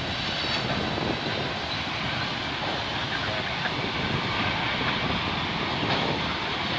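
Steady rolling noise of a long Canadian Pacific freight train, loaded lumber flatcars and tank cars, passing by.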